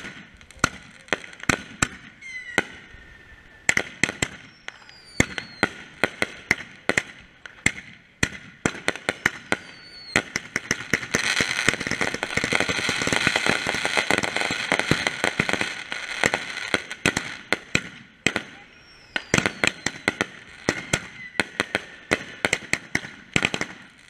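Consumer aerial fireworks going off in rapid succession: many sharp bangs, a few short falling whistles, and a long stretch of dense crackling near the middle.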